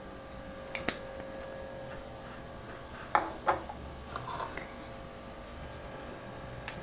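Quiet kitchen background with a steady faint hum, broken by a sharp click about a second in, a few light knocks around three seconds in, and another click near the end. The oil in the pan is not yet sizzling.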